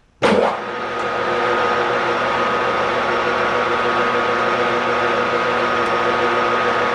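Metal lathe switched on: a sudden start, then the motor and headstock running steadily with a whine, the chuck spinning at speed.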